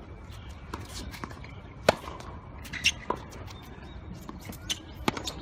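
Tennis ball struck by rackets and bouncing on the court: a few sharp pops, the loudest about two seconds in, with more near three and five seconds, over steady low background noise.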